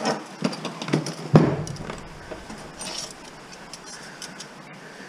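Loose metal computer parts and hand tools clinking and clattering on a wooden workbench as they are handled, a few separate knocks with one louder knock about a second and a half in, then lighter rattling.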